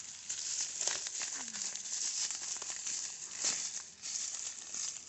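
Footsteps crunching and rustling through dry leaves and brush, with louder crunches about a second in and again past three seconds.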